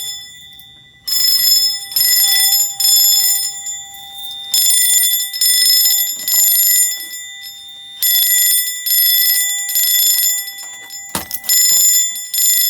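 Fire alarm system in alarm, its notification appliance sounding a ringing tone in groups of short bursts with a pause between groups, repeating every few seconds. This is the panel's coded alarm signal after a smoke detector was set off with canned smoke tester. A sharp click about eleven seconds in.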